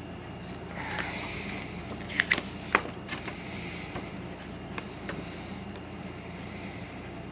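Paper and packaging being handled: a glossy episode-guide booklet is flipped through and the set's case moved, with a few sharp clicks about two to three seconds in. A steady low hum sits underneath.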